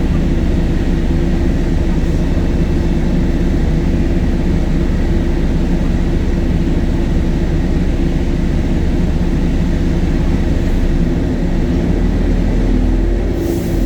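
Temsa Avenue LF city bus's DAF Euro 5 diesel engine running at a steady pitch. A short hiss comes near the end.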